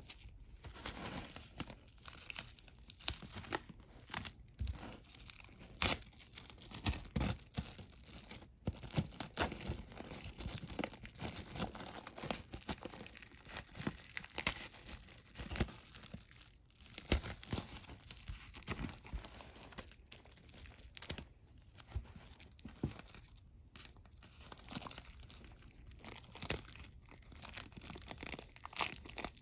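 Wrapping on a vinyl LP being torn open and crinkled by hand: a long run of irregular sharp crackles and rustles, with a brief pause about midway.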